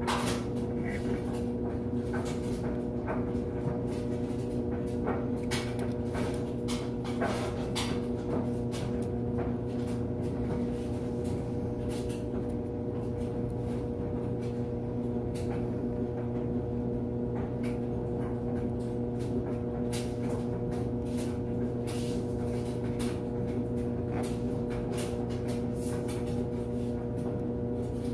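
Scattered small clicks and taps of metal carburetor parts and tools being handled while a part is worked loose, over a steady electrical hum.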